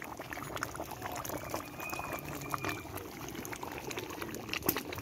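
A large pan of beef curry bubbling over a wood fire, with many small irregular pops.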